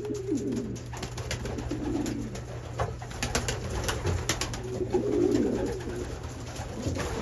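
Racing pigeons cooing in a small loft, low murmuring coos coming in several separate bouts, with a few sharp taps in between.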